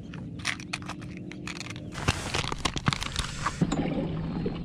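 Rustling with a quick run of sharp clicks and knocks from hands handling gear aboard a plastic fishing kayak, busiest in the second half, over a faint steady hum.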